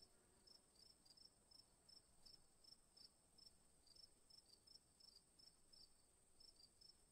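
Near silence, with faint cricket chirps about three times a second over a steady high whine.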